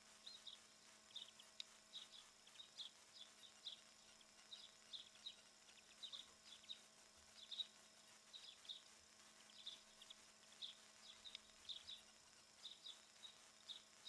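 Small birds chirping: faint, short, high calls, a few every second in loose clusters, over a faint steady hum.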